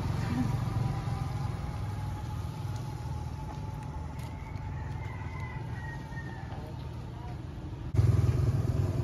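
A motor vehicle's engine running steadily, slowly getting quieter, then abruptly louder again near the end.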